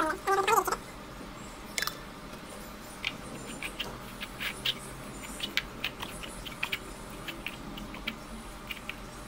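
Fingers working damp, crumbly flour dough for fishing bait in a ceramic plate: scattered light clicks, taps and rustling as fingertips and nails knead the mix and scrape the plate. A brief snatch of voice opens it.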